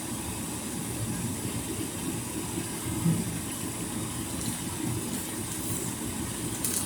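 Steady low rumbling background noise with a faint hiss, and a brief crinkle near the end.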